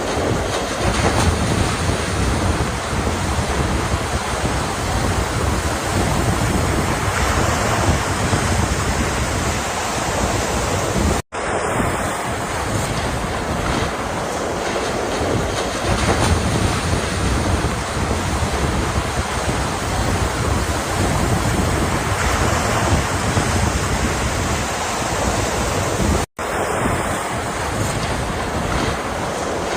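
Ocean surf washing in continuously, with wind rumbling on the microphone. The sound cuts out abruptly for a split second twice, about 11 and 26 seconds in.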